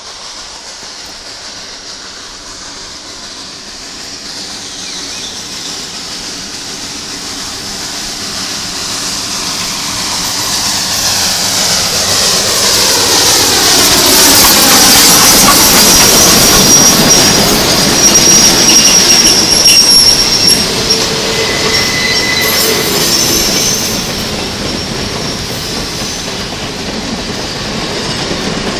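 Clover Valley Lumber Company 2-6-6-2 Mallet steam locomotive No. 4 approaching and passing close, growing steadily louder to a peak about halfway through. Its train of freight cars then rolls by, wheels clacking over the rail joints with a high wheel squeal on the curve.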